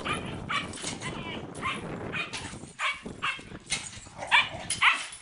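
Dogs barking and yipping in short, separate calls, about eight or nine of them irregularly spaced, as husky puppies and a white dog face each other.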